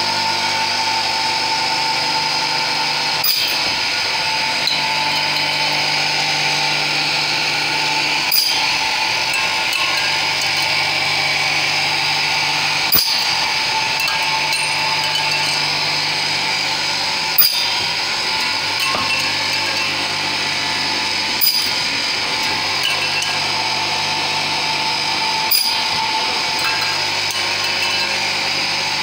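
Flying cut-off saw running: its circular blade spins with a steady whine as the carriage travels on its rails. Roughly every four seconds there is a short sharp hit as it cuts off a length of aluminum screen-frame profile.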